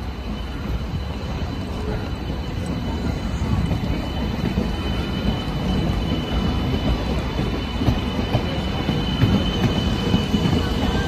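E2 series Shinkansen train rolling slowly past on depot tracks: a low rumble of wheels on rail that grows louder, with a thin steady high-pitched whine over it. Sharper clacks come through near the end as the wheels run over the track.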